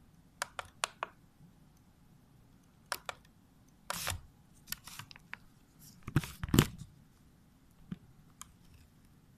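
Handling noises of dissection on a bench: a few sharp clicks near the start, a short rustle about four seconds in, the loudest knocks and scrapes about six seconds in, then a couple of faint clicks near the end.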